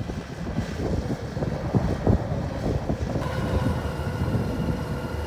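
Rice combine harvester running, with wind buffeting the microphone; about three seconds in a steady engine hum with several even tones comes in over the rough rumble.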